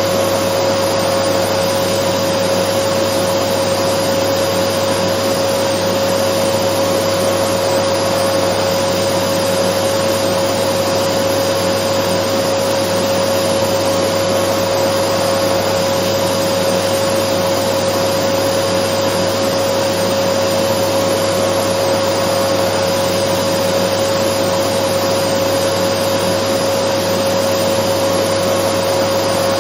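Dyson vacuum cleaner running steadily: an unchanging rush of air with a constant mid-pitched whine and a low hum beneath it.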